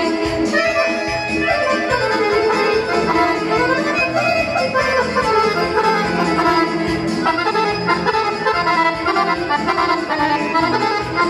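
Piano accordion playing a lively folk dance tune live, with quick runs of notes over a steady rhythm in the bass.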